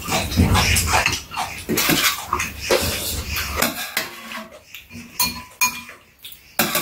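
Metal spoons and chopsticks clinking and scraping against bowls while two people eat noodle soup, along with eating noises. The clatter is busy at first and thins out after about four seconds to a few separate clinks.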